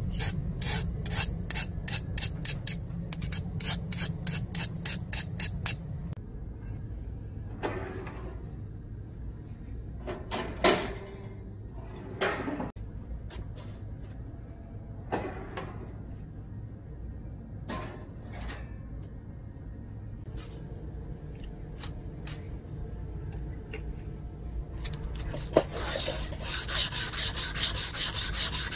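Quick, regular scraping strokes on a steel knife blade cut from a motorcycle brake disc, then a stretch of scattered clicks and knocks. Near the end, steady hand-sanding of the blade with abrasive paper starts and carries on.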